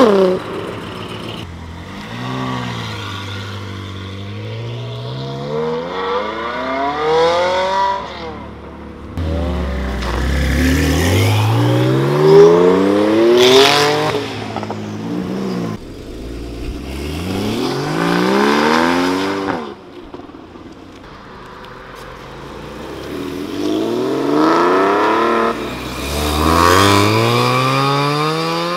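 Several sports cars accelerating hard one after another, each engine revving up in rising sweeps that drop back at each gear change before climbing again.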